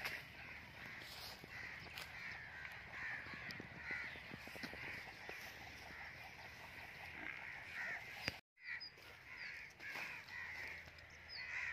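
Crows cawing again and again, faint. The sound cuts out completely for a moment about eight and a half seconds in.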